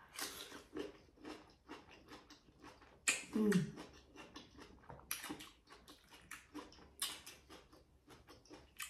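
Close-miked crunching and chewing of cucumber: a run of short, crisp, crackly bites and chews, several a second. About three seconds in there is a brief falling "mm" from the eater.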